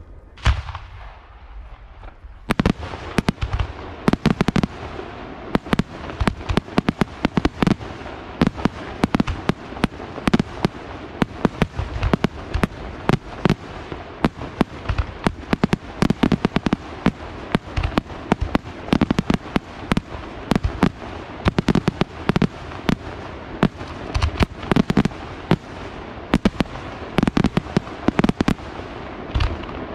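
Aerial firework shells bursting: one bang about half a second in, then from about two and a half seconds a rapid, unbroken volley of bangs and crackling reports.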